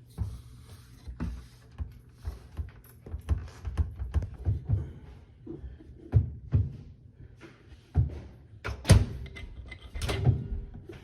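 Irregular knocks and clicks of hands pushing and tapping on a Bosch speed oven's door and front panel, with the loudest knocks near the end. The tapping is a test for a loose connection or faulty door switch that makes the oven lose power.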